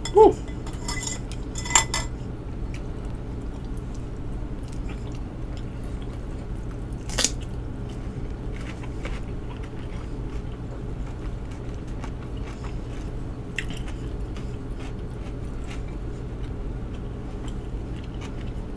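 A metal fork clinking against a glass bowl: a brief falling squeak at the very start, a click about 2 s in, and a sharper click about 7 s in, with quiet chewing between over a low steady hum.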